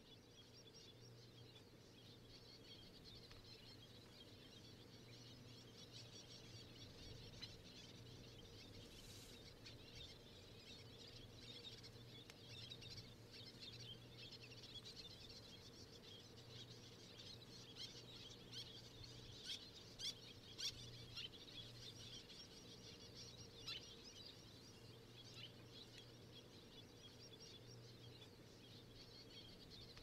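Faint outdoor ambience: a dense, continuous chatter of small high-pitched bird calls from distant waterbirds, over a low steady hum. A few short, sharp clicks stand out a little before two-thirds of the way through.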